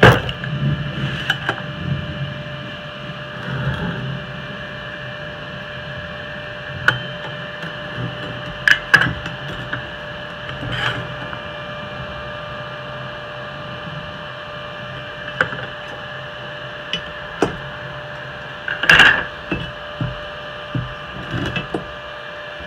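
Scattered knocks and clicks as a steel square tube and a marker pen are handled and set down on a wooden workbench, a few louder knocks coming near the end. A steady hum runs underneath.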